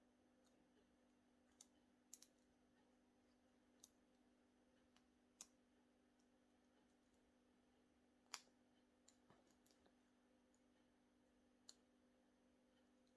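Faint, scattered clicks of a lock pick and tension wrench working the pins inside a six-pin brass Abus 82/90 shutter padlock during single pin picking. The clicks are irregular, with the loudest about eight seconds in and a quick little cluster just after, over a faint steady hum.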